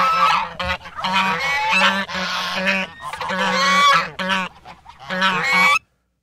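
A flock of geese honking, many calls overlapping one another; the sound cuts off suddenly near the end.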